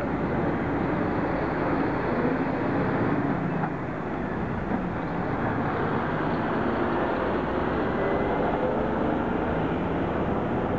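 Diesel engine of a three-axle Scania heavy rescue truck running as the truck pulls slowly past, over steady city traffic noise.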